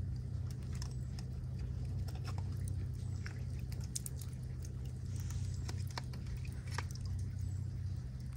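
Short, irregular scrapes and clicks of a knife against scallop shell as scallops are shucked, over a steady low hum.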